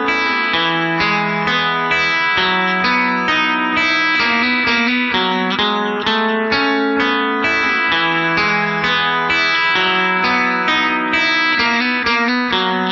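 Background music: a guitar playing a quick, even run of plucked notes.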